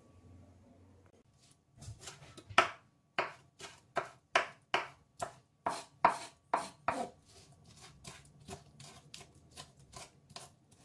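Large kitchen knife chopping tomatoes on a wooden cutting board: a run of sharp knocks, about two or three a second, starting about two seconds in and growing quieter over the last few seconds.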